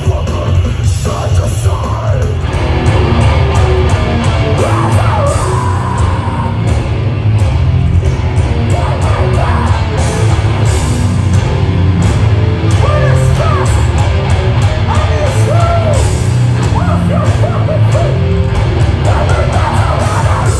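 A live heavy rock band playing loud, with distorted guitars, a heavy low end and pounding drums, and yelled vocals over it.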